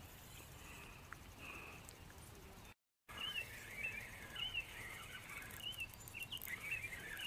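Small birds chirping faintly and repeatedly in short, arching calls, with a brief dropout in the sound about three seconds in.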